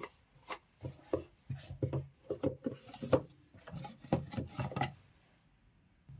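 Cardboard boxes and small items being handled and set aside on a wooden table: a run of irregular knocks, taps and rubbing that stops about five seconds in.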